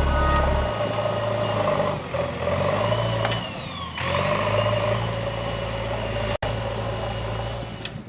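JCB backhoe loader's engine running under load as it pushes and lifts soil with its front bucket, a steady drone with a higher whine that rises and falls about three seconds in.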